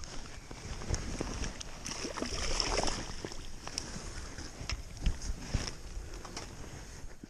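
Handling noise from a spinning rod, reel and landing net: rustling and irregular clicks, with water splashing as a fish is scooped from the shallows in the net.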